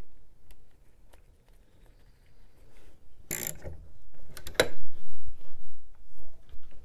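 Clicks and clatter of battery terminal clamps and cables being handled and pushed down onto the battery posts, with a louder scraping burst a little past three seconds and a sharp click about a second later.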